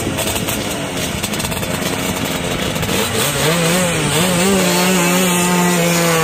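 Two-stroke racing scooter engines, one of them a Rotax 335cc-engined Lambretta, revving on the start line of a quarter-mile sprint. They blip unevenly at first, then are held at steady high revs from about three seconds in, ready to launch.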